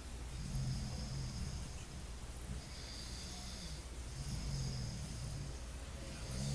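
Snoring in deep sleep: slow, rhythmic breaths about every three to four seconds, each snore a low rumble with a breathy hiss.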